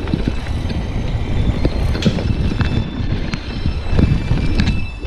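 Mountain bike rolling fast over a rough dirt trail: the frame, chain and parts rattle and knock over bumps, with a steady rumble of tyres and wind on the microphone.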